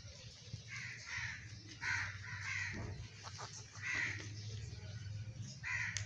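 Rose-ringed parakeets giving short, harsh squawking calls, about six of them in a few seconds.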